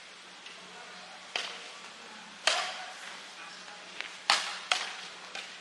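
Badminton rally: a racket's strings striking a shuttlecock in sharp, crisp pops, about six hits spaced roughly a second apart, two of them coming quickly together near the end.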